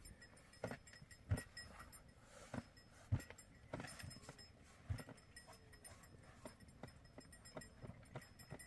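A scatter of short, soft thumps and knocks, roughly one a second and irregularly spaced, over a quiet background.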